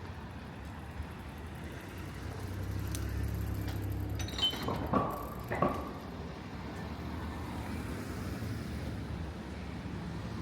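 A motor vehicle drives past on a city street, its low engine rumble building and then fading. A few sharp clicks or knocks come about halfway through, over a steady street hum.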